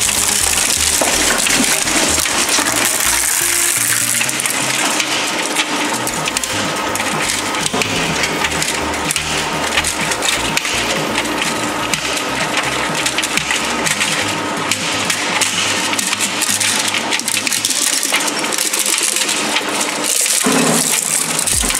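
Twin-shaft shredder's steel cutter discs grinding up a PlayStation 3 console, its plastic casing and metal-shielded circuit boards cracking and snapping in a dense, continuous run of clicks.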